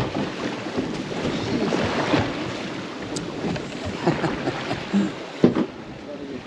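Wind buffeting the microphone over the sea and water washing against a small boat's hull, with a few brief knocks near the end.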